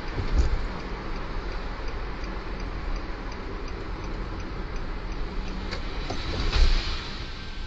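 Car cabin noise recorded by a dashcam while driving on a wet road: steady engine, road and tyre noise with a regular light ticking. The noise swells briefly about half a second in and again about six and a half seconds in.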